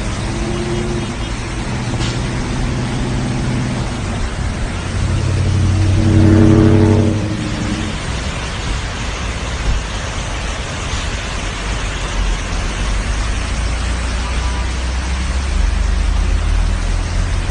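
A car driving, with a steady rush of noise and an engine note; the engine swells louder for a second or two about six seconds in.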